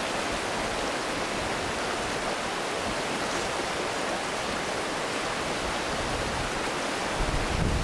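Steady rush of a fast-flowing river running over stones and riffles. Near the end, wind starts buffeting the microphone with a low rumble.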